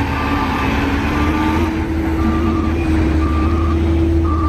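Heavy eight-wheel dump truck's diesel engine running with a steady low rumble, while a reversing alarm beeps about once a second, each beep about half a second long.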